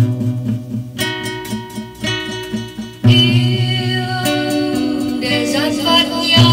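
A song with plucked acoustic guitar picking out notes. About three seconds in, fuller backing music comes in suddenly and louder, and a woman's singing voice enters in the second half.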